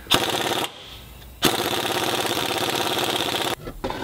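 Pneumatic impact wrench hammering on the pinion nut of a Subaru R180 rear differential, tightening it to set pinion bearing preload. It runs in two bursts: a short one near the start and a longer one of about two seconds from about one and a half seconds in.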